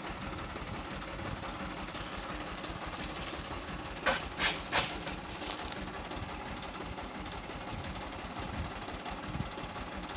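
Mitsubishi Canter dump truck's diesel engine idling steadily, with three sharp knocks about four to five seconds in.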